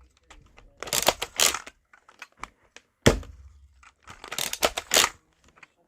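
Rattling, clicking handling noises in two bursts, with a single sharp knock about three seconds in.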